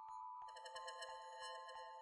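Faint background music: soft, bell-like mallet tones over a light, regular tick, with a new layer of notes coming in about half a second in.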